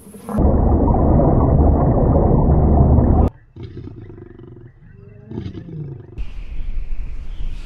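A large animal's loud, harsh roar lasting about three seconds, cut off abruptly, followed by quieter low grunts and a low rumble.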